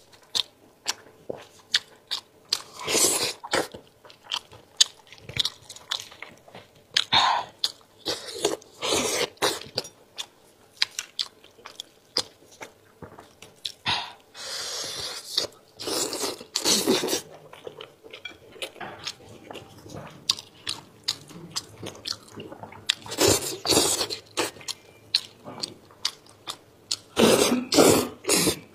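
Close-miked wet chewing and mouth smacks of spicy braised sheep's head meat. Louder bursts every few seconds come as gloved hands tear the meat apart.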